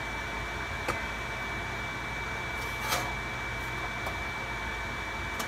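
Over-the-stove vent fan running steadily with a faint constant whine, broken by a few light clicks and knocks of cookware handling, the loudest about three seconds in.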